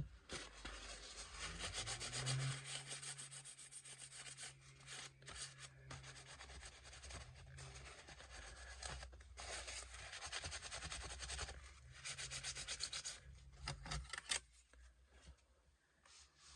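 Paper soaked in isopropyl alcohol rubbing back and forth over a laptop's CPU and graphics chip, wiping off old thermal paste: a run of scratchy wiping strokes with a brief pause midway, thinning out near the end.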